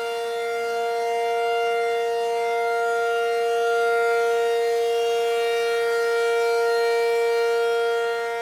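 Double-sided Federal Signal Model 500 warning siren sounding a steady held tone at full speed, its loudness swelling and easing only slightly rather than rising and falling as a single rotating horn would.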